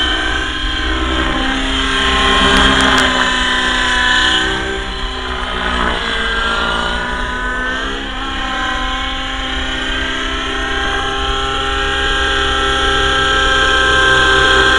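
Avant Aurora 90 nitro RC helicopter in flight: its glow engine and rotors give a continuous whine whose pitch dips and rises a little past the middle as the heli manoeuvres.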